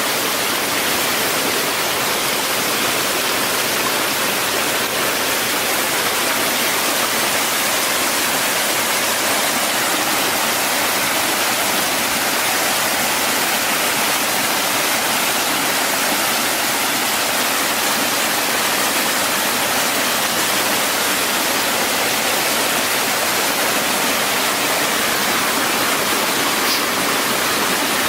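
Steady, loud rushing noise that stays even throughout, with no breaks or separate events.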